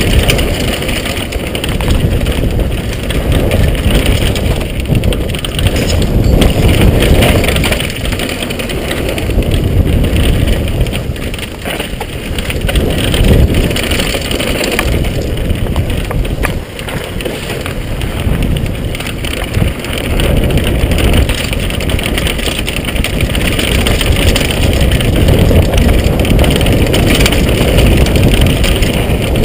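Wind rushing over the microphone with the rattle and clatter of a downhill mountain bike running over a rough trail, surging and easing as the speed changes.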